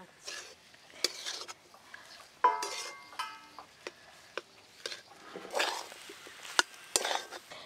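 Metal spoons scraping and clinking: a spoon scooping the seeds out of halved pointed gourds, and a spatula stirring mashed potato filling in an aluminium pan. Scattered scrapes and clicks, with a short metallic ring about two and a half seconds in and louder scraping strokes near the end.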